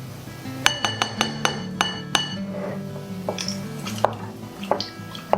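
A spoon clinking against the side of a glass jar while stirring thick sourdough starter: about six quick ringing clinks in the first couple of seconds, then a few softer knocks. Background music runs underneath.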